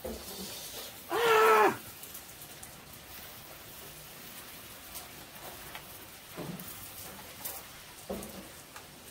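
A single loud animal call about a second in: a held, high cry with many overtones that drops away at its end. Two fainter, lower calls come later. Underneath are light sizzling from the frying pan and small crackles from the wood fire.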